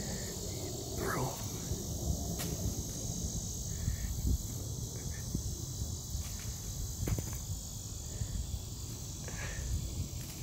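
Insects droning outdoors in a steady, high, continuous buzz, over a low rumble, with a few short faint chirps and a falling glide about a second in.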